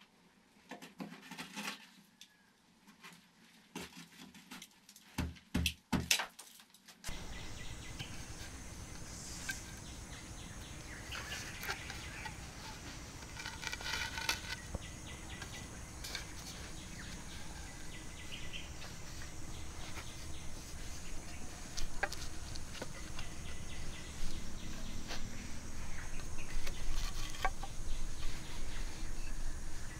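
A series of sharp knocks as a hoe strikes the earth of a pit in a small, enclosed dug-out room. About seven seconds in it changes to a steady outdoor background of birds and insects, with a few light knocks of hollow green bamboo poles being set down.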